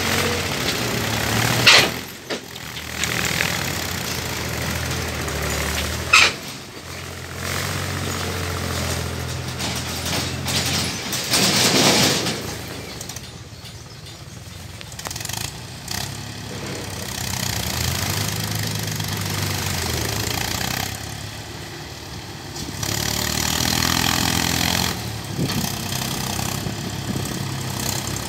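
Diesel tractor engine labouring as it hauls a loaded trailer up a rutted dirt track, its note rising and falling with the throttle. Two sharp knocks come about two and six seconds in.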